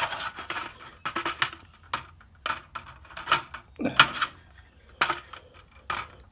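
Repeated short scraping strokes, about one a second, as a plastic RV vent cover and a scrap wood gauge block rub against each other while the cover's lip is marked to 3/4 inch. The loudest stroke, about four seconds in, ends in a brief falling squeak.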